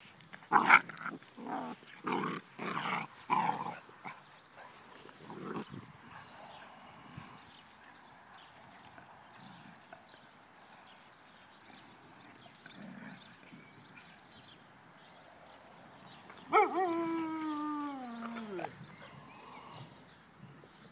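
Vizsla puppies play-fighting: a quick run of short, loud yaps and growls in the first few seconds, then quieter scuffling. Near the end comes one long whine, about two seconds, that falls in pitch.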